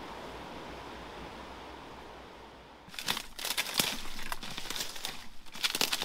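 Steady hiss of flowing creek water, then about three seconds in a sudden change to crisp crackling and crunching of dry leaves and twigs in irregular bursts.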